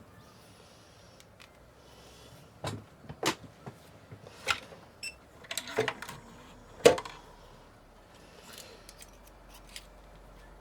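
Scattered clicks and light knocks of a new tip being fitted to a soldering iron, the loudest about seven seconds in.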